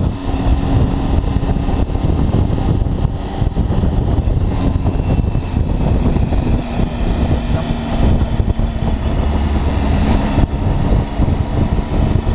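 Triumph three-cylinder motorcycle engine running steadily while cruising along a road, with a dense low rumble.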